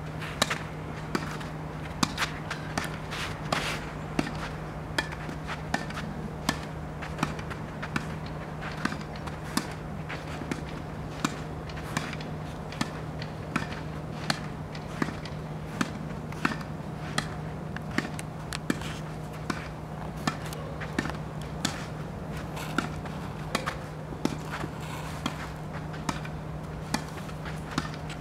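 Tennis balls struck by a racket and bouncing on the court in a continuous rally, a sharp pop repeating about once or twice a second.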